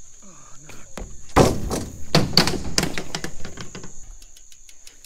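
BMX bike hitting a ramp: a loud impact about a second and a half in, then a run of knocks and rattles over the next second or so, trailing off into light clicks.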